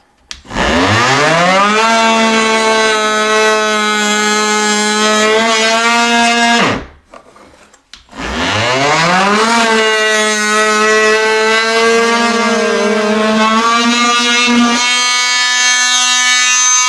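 Electric power tool running in two long bursts working into plywood. Each time the motor spins up to speed with a rising whine and then holds a steady pitch: the first run lasts about six seconds, and the second starts after a short pause and carries on to the end.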